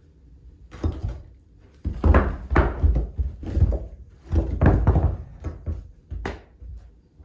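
Heavy foundation stones being pried loose with a steel crowbar and shifted: a series of dull thunks and gritty scrapes of rock and iron. The heaviest come in clusters about two and five seconds in, with a sharp knock near the end.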